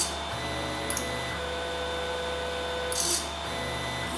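Prusa i3 3D printer running its auto bed leveling routine: the stepper motors whine at several pitches that switch as the probe is moved between points. A short hiss comes right at the start and again about three seconds in, over a steady low hum.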